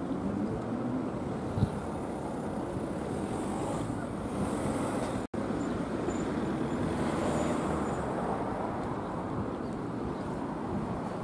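Steady street traffic noise, the hum of cars on a roundabout, with a single sharp knock about one and a half seconds in and a brief cut to silence about five seconds in.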